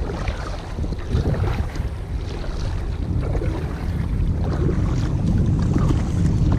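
Wind buffeting the microphone, with faint water splashes from a kayak being paddled.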